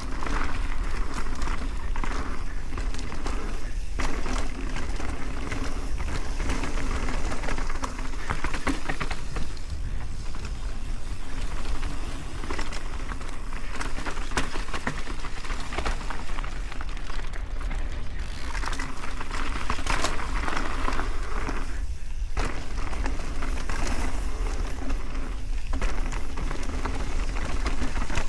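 Mountain bike riding on a dirt trail: tyres rolling and crackling over dirt and gravel with many small clicks and rattles, over a steady low rumble.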